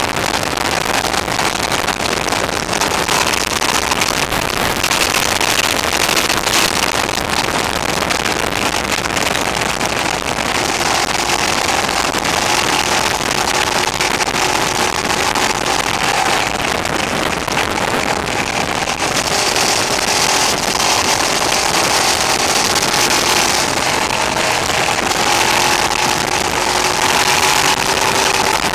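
Motorcycle riding at a steady cruise: loud wind and road noise on the camera's microphone, distorted because the recording level was set a bit too high, with the engine's steady note faintly underneath.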